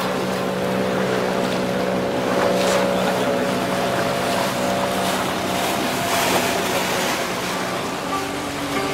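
Motorboat engine running at a steady hum while water rushes and splashes along the hull.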